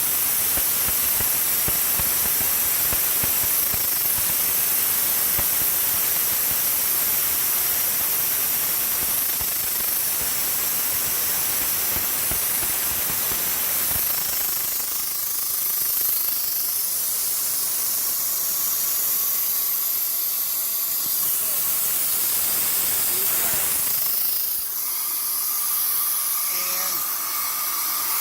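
Machine tool boring out a threaded hole in a diesel engine block: a steady hiss with a dense rattle of cutting that thins out about halfway through.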